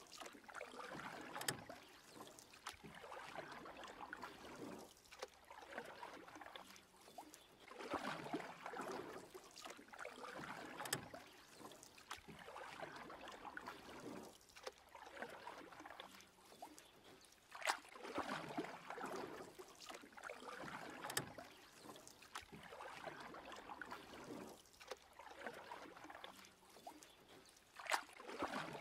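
Water sloshing and splashing in a plastic paddling pool as a dachshund paddles, in soft irregular swishes every few seconds with a few sharp clicks.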